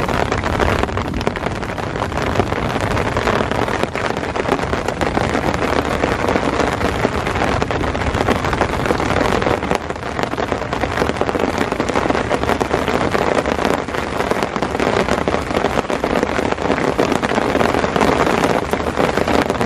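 Heavy rain falling in a steady downpour during a thunderstorm.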